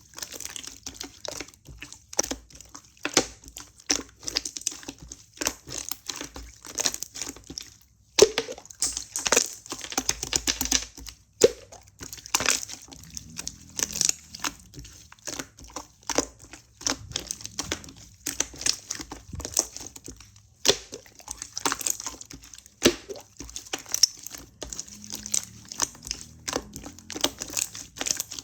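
Clear slime, slightly melted, being squished and pressed by hand, making dense, irregular sticky clicks and crackles.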